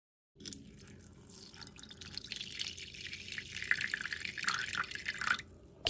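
Water pouring from a plastic jug into a glass dish and splashing over a circuit board, rinsing off vinegar. The pour starts faint, grows louder, and stops shortly before the end.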